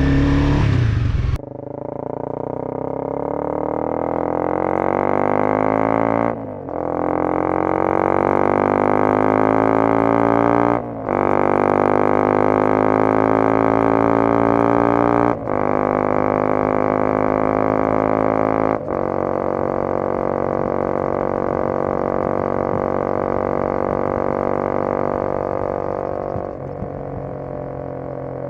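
Honda CBR250R's single-cylinder engine accelerating through the gears. Its pitch rises steadily between four brief dips at the upshifts, then holds steady at cruising speed and falls off a little near the end.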